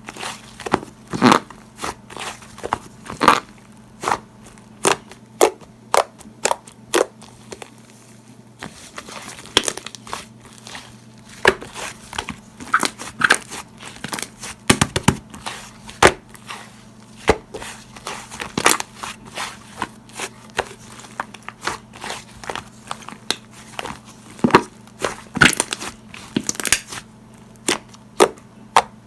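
Slime being squished and pressed by hand, making sharp, irregular clicking and popping sounds, sometimes several in quick succession.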